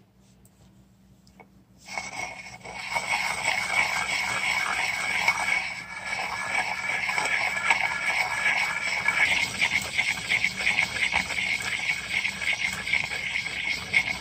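Hand-held stone grinding wet red ochre paste against a flat stone slab: a continuous gritty, wet scraping that starts suddenly about two seconds in.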